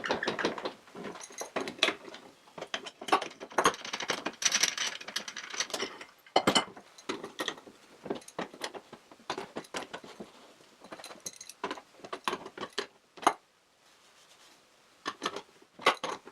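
Irregular clacks, clicks and knocks of metal fittings and a wooden block being handled and refitted, with some scraping, as the block holding a lathe tailstock is flipped over and remounted under a drill press. The sounds come in scattered clusters, with a short quiet spell near the end.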